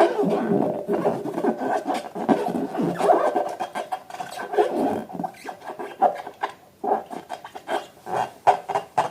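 Glossy slime being squished, stretched and poked by hand, giving a steady run of irregular sticky clicks, pops and crackles.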